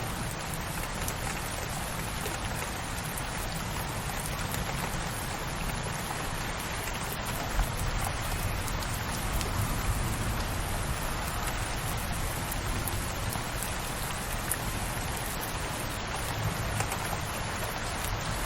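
Steady rain falling, an even hiss of drops with a few sharper drop ticks here and there.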